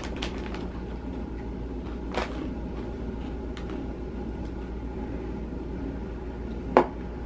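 Steady low hum with faint background noise, with two short clicks, one about two seconds in and one near the end.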